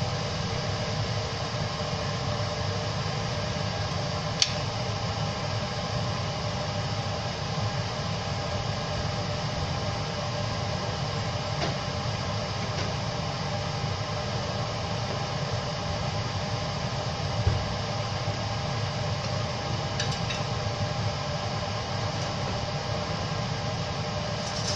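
Steady mechanical whir and hum of kitchen appliance noise, with a covered pan of spice masala cooking on the hob beneath it; a few faint clicks, the clearest about four seconds in.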